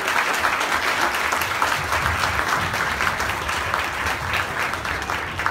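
Audience applauding: dense, continuous clapping from a large crowd, easing off slightly near the end.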